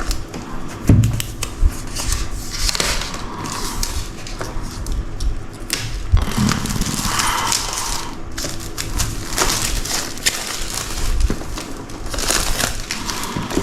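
A keyboard's retail box being worked open by hand: packaging rustling and scraping, with scattered clicks and knocks.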